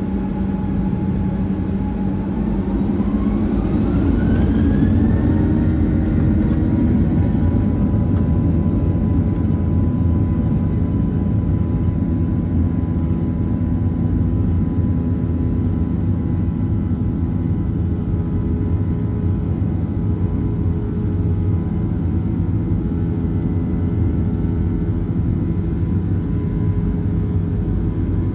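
Boeing 737-800's CFM56 jet engines heard from inside the cabin, spooling up: several whine tones rise in pitch for a few seconds as the noise grows louder. The engines then hold at a steady high thrust with a constant cabin rumble, as on the takeoff roll.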